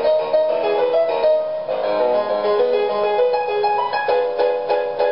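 Background piano music: a melody of quick, overlapping notes.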